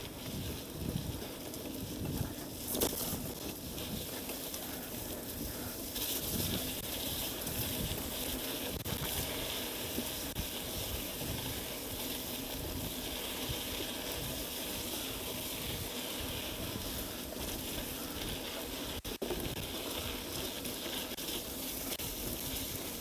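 Mountain bike riding along a dirt track: a steady hiss of tyres rolling on dirt, with wind buffeting the handlebar camera's microphone as a gusty low rumble.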